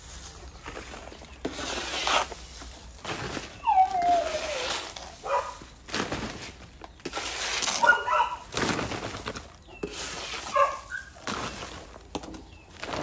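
Dry leaves and litter rustling and scraping as they are scooped with a plastic dustpan and tipped into a crinkling woven plastic sack. A baby monkey gives a few squeaky calls: one falling call about four seconds in, shorter ones near eight and eleven seconds.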